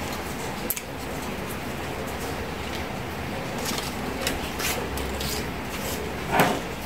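Small handling noises of paper crafting with coloured paper and plastic straws: scattered light clicks and rustles, with one louder rustle near the end, over a steady low hum.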